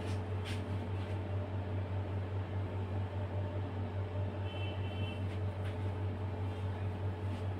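Steady low machine hum with a fainter steady higher tone over it, and a couple of faint clicks.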